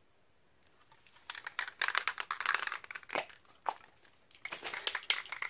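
Aerosol spray-paint can (Rust-Oleum Painter's Touch 2X Ultra Cover) being shaken, its mixing ball rattling in quick, irregular clicks to mix the paint before spraying; the rattling starts about a second in and pauses briefly about four seconds in.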